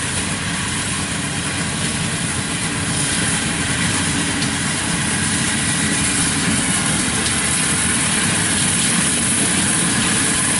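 Yanmar AW82V rice combine harvester running as it cuts rice, its engine and threshing machinery making a steady, dense drone that grows gradually louder as the machine comes closer.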